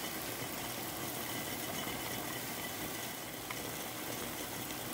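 Maple syrup at a rolling boil in a pot on an electric stovetop, a steady bubbling hiss. It is the last stage of boiling sap down to syrup, at about 219 °F and not yet finished.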